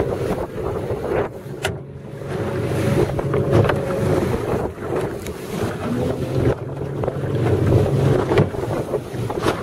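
Wind buffeting the microphone and water splashing against the hull of a small open boat moving over choppy sea, with a few short knocks.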